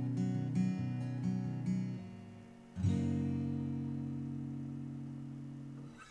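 Acoustic guitar playing the song's outro: a picked pattern of quick single notes, then one final strummed chord about three seconds in, left to ring and fade out.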